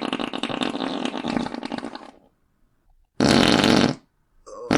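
Fart sound effect: a long, loud fart that tails off about two seconds in, then after a second of quiet a short, loud second fart.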